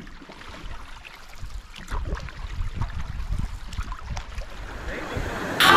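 Wind rumbling on the microphone over light splashing and dripping of canoe paddles in calm river water, with scattered small clicks. Music starts abruptly near the end.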